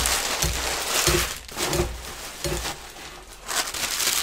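Clear plastic wrapping crinkling and rustling as it is handled and pulled off a boxed metal measuring cup, with a few soft bumps in the first couple of seconds.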